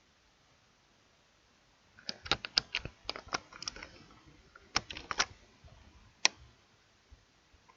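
Computer keyboard keys pressed in an irregular run of sharp clicks starting about two seconds in, with a single louder click a little after six seconds.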